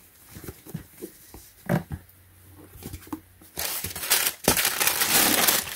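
Tissue paper in a shoebox rustling and crinkling under a hand, loudest over the last two seconds, after a few light taps and rustles of handling.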